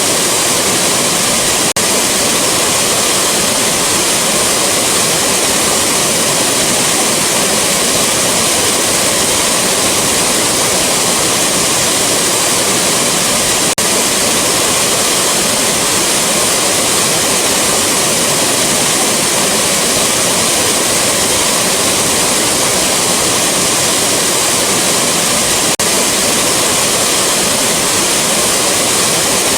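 Rushing waterfall: a steady, dense rush of falling water, with a faint click about every twelve seconds where the recording loops.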